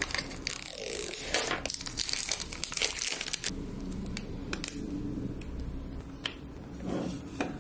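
Plastic protective film crinkling and tearing as it is peeled off a laptop power brick, followed by sparser clicks and rustles as the power cord is handled and plugged into the brick.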